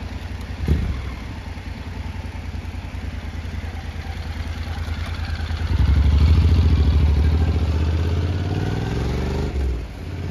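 Honda NC750X's parallel-twin engine idling with a steady low pulse, with a single clunk about a second in. About six seconds in the motorcycle pulls away: the engine gets louder, its pitch rises, and it fades as the bike rides off.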